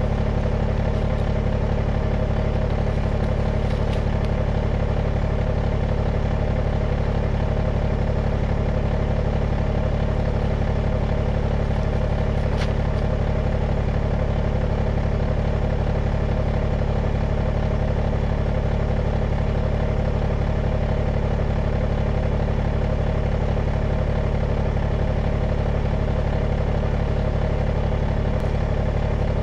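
Kubota BX23S subcompact tractor's three-cylinder diesel engine idling steadily.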